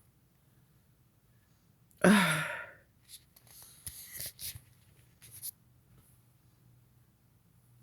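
A single loud human sneeze about two seconds in, set off by chhinkni sneezing powder, its voiced part falling in pitch. It is followed by several short, quieter rustles, like a tissue being handled.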